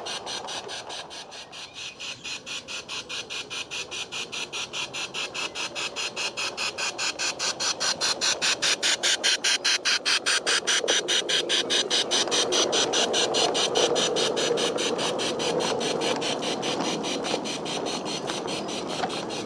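A G-scale garden-railway train of wagons and coaches hauled by a battery-powered LGB Stainz locomotive running on 45 mm track: a steady, even ticking of about four or five a second over the rolling rumble of the wheels. The sound grows louder towards the middle as the stock passes close by.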